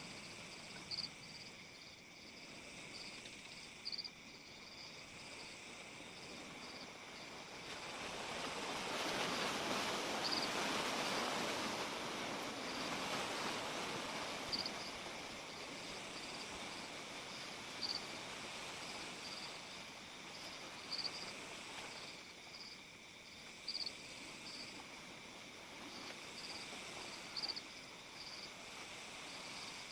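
Night crickets and other insects trilling steadily, with a short louder chirp every few seconds. A broad rushing noise swells up about a third of the way through and then fades away.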